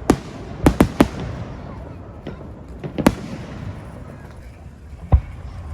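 Fireworks shells bursting: a quick run of sharp bangs in the first second, another about three seconds in, and a single loud bang near the end, each trailing off into a fading echo.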